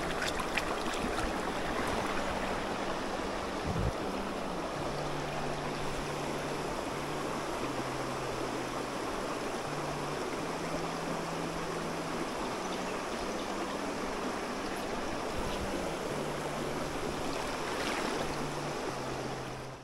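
Small creek flowing steadily, an even rush of running water.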